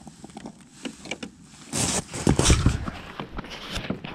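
Boots crunching on snow-covered ice, with knocks and rubbing from a camera being picked up and carried. The loudest part is a burst of handling noise about two seconds in.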